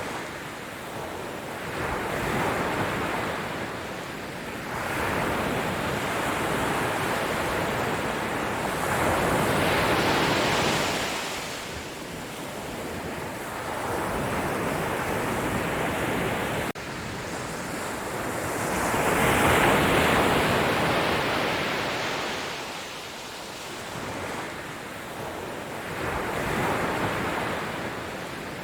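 Sea waves breaking and washing up the shore, a steady rush of surf that swells and falls back every few seconds, about six surges in all.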